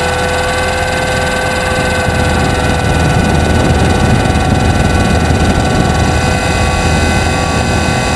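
500-size RC helicopter in flight, heard through its onboard camera: a steady whine from its powertrain over a constant rush of rotor and wind noise.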